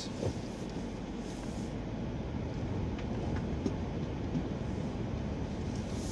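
Car driving, heard from inside the cabin: a steady low rumble of tyre and engine noise, with a few faint ticks.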